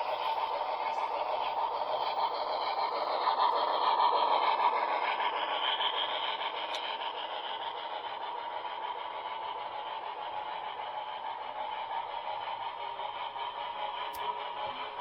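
HO scale model steam locomotive running along its track with a steady mechanical hum. It grows louder over the first few seconds, peaks about four to five seconds in, then slowly fades.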